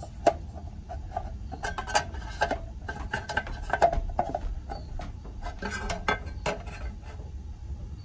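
Sheet-metal cover being fitted onto a steam boiler's control box: scattered metallic clicks, taps and rattles over a steady low hum.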